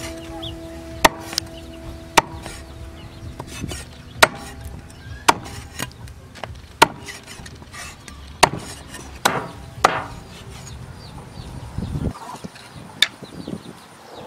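Meat cleaver chopping eel into chunks on a wooden stump chopping block: sharp thwacks about once a second, some eight in all, with the pieces shuffled by hand between strikes.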